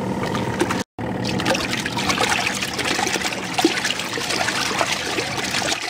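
Water sloshing, splashing and trickling in the wash tub of a portable twin-tub washing machine during a wash load. The sound cuts out briefly about a second in, then resumes as busy, continuous splashing.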